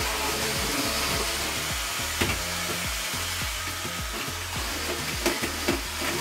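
Background music with a steady beat over a steady rushing noise.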